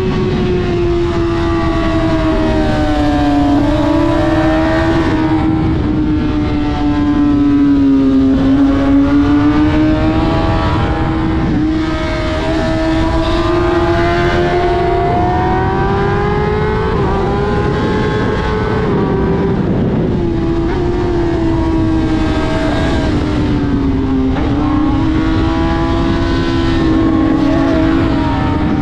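Sport motorcycle engine held at high revs while riding at speed, one steady high note that drifts slowly up and down with the throttle, over heavy wind rush.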